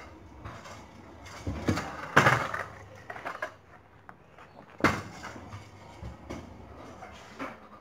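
Kick scooter and rider on a dirt yard: a burst of scraping and rolling noise about two seconds in, the loudest part, then a single sharp clack about five seconds in, with smaller knocks around it.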